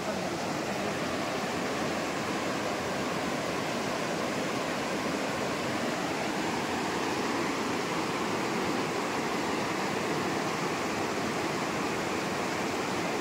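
Steady rush of a fast-flowing river running over stones and rapids.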